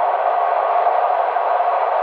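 Steady road noise inside a car cruising on an expressway: an even hiss of tyres and wind with no engine note or separate events.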